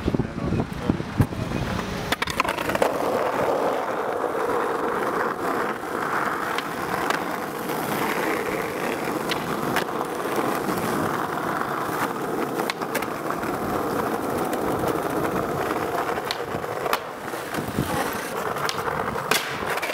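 Skateboard wheels rolling on asphalt, a steady rumble. There are sharp clacks of the board in the first couple of seconds and a few more knocks near the end.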